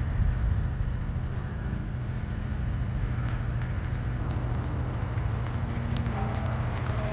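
Steady low drone of engines running, with a few sharp clicks through the second half.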